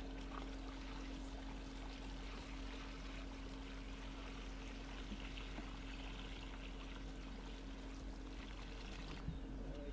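Water pouring steadily out of several plastic buckets into a shallow pond, a continuous splashing pour.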